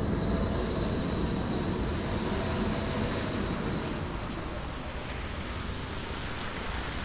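Steady low rumble of passing motor traffic, easing off slightly about four seconds in.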